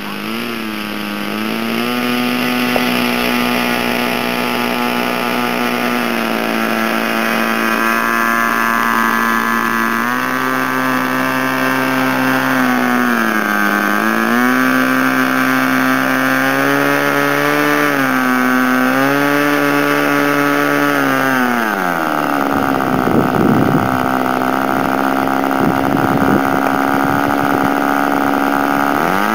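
Evolution .46 glow two-stroke engine on an RC airplane running on the ground, its pitch falling and rising with several throttle changes. About three quarters of the way through it drops to a lower idle, with rough gusty noise on the microphone, and it revs up again at the very end.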